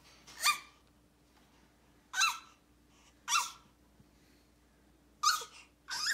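Baby squawking: about five short, high-pitched squeals, each sliding in pitch, spaced a second or so apart.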